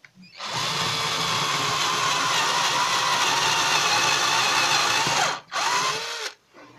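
Cordless drill-driver, an 18-volt model run off two 6-volt batteries in series, spinning a 6 mm bit to widen a hole for a confirmat furniture screw. It runs steadily for about five seconds, stops briefly, then runs once more for under a second and winds down.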